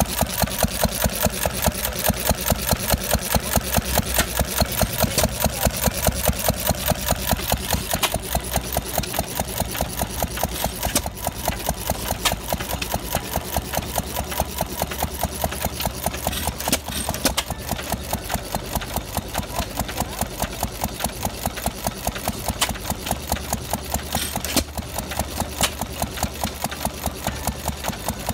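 Vintage hit-and-miss stationary gas engines running, with a steady rapid clatter of about four clicks a second and a low engine hum.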